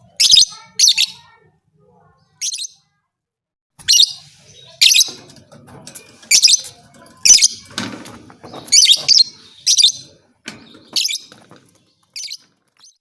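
Lovebird giving short, shrill chirps in irregular bunches, with a pause of about two seconds near the start.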